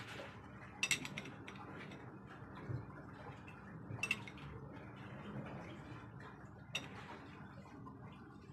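Ring spanner clinking against the steel delivery valve holders of a Mitsubishi 8DC11 fuel injection pump as they are refitted and tightened, with three short bursts of sharp metallic clinks about a second, four seconds and seven seconds in, over a steady low hum.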